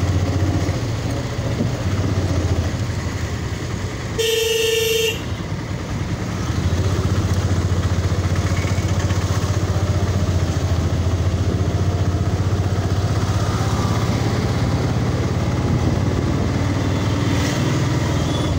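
Motorcycle engine running steadily while riding along a road, heard from on board, easing off and then picking up again about six seconds in. A single vehicle horn honks for about a second, about four seconds in.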